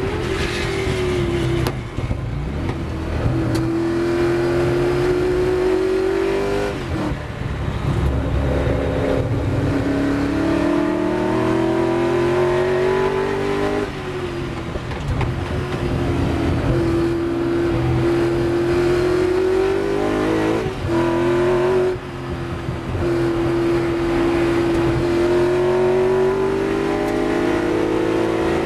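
Ford GT40's V8 racing engine heard from the cockpit at racing speed, rising in pitch as it accelerates. There is a sharp break and drop in revs at each gear change, about seven seconds in and again around 21 and 22 seconds. About halfway through it eases off to lower revs, then pulls up again.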